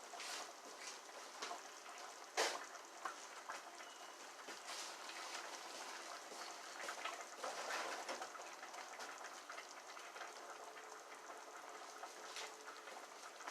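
Faint, steady bubbling and sizzling of squash, spinach and milk cooking down in a pan on the stove, with a few scattered sharp clicks, the loudest about two and a half seconds in.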